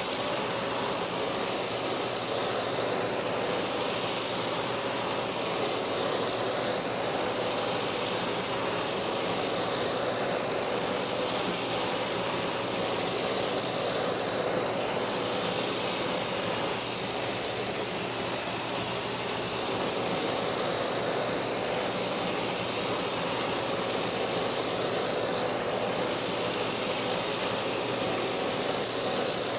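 Kearney & Trecker horizontal milling machine running under cut, its cutter milling CPVC plastic: a steady machine hum with a few even tones under a dense, continuous hiss of the cutter shearing chips.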